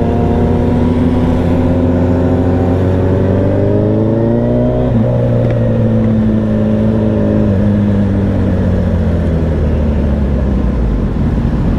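Sportbike engine heard from the rider's seat under way, its pitch climbing steadily as it accelerates, then a break about five seconds in like a gear change, after which it eases off slowly. Wind and road noise run under it.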